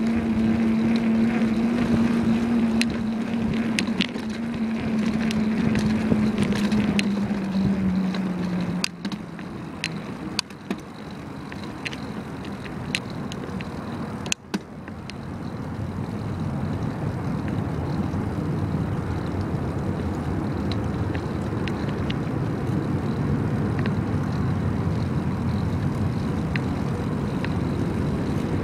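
Wind rushing over the microphone and road rumble on a moving bicycle, with scattered clicks and rattles. A steady hum sinks slightly in pitch over the first eight seconds and stops; the noise then drops quieter for a few seconds, with a sharp knock about fourteen seconds in, before the rushing builds back.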